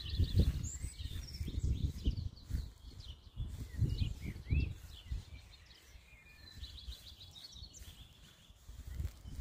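Small birds chirping: scattered short calls, some sliding up or down in pitch, and a short rapid trill a little past the middle. Low buffeting on the microphone comes and goes underneath and is the loudest sound.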